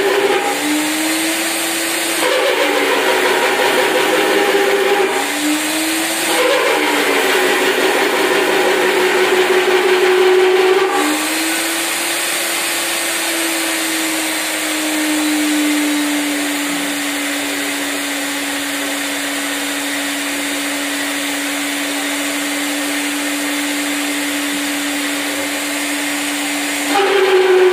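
Eurobore magnetic drill running while cutting into metal plate: its motor tone drops in pitch as the cutter bites under load and jumps back up when the feed is eased. It does so twice in the first seven seconds, then holds a long, steady cut from about eleven seconds, rising again near the end.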